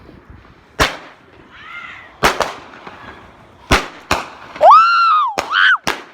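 Fireworks going off: a string of sharp cracks and bangs, then near the end a loud, high whistle that rises and falls, followed by a shorter whistle and another crack.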